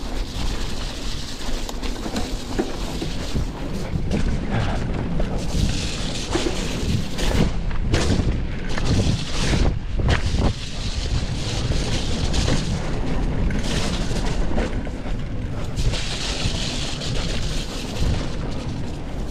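Mountain bike riding fast down a rough dirt trail: wind buffeting the camera microphone with tyre noise, and the bike knocking and rattling over bumps, most heavily from about eight to ten seconds in.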